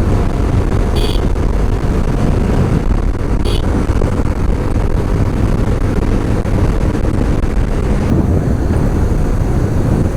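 Steady rush of wind and engine and road noise from a motorcycle cruising on a highway, with two brief high chirps about one and three and a half seconds in.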